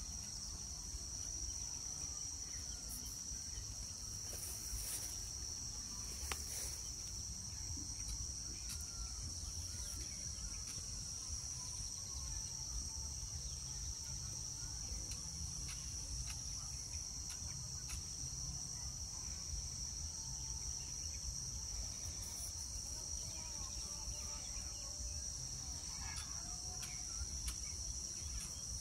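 Insects chirring in one steady, high-pitched drone that never breaks, over a low background rumble, with a couple of faint clicks about five and six seconds in.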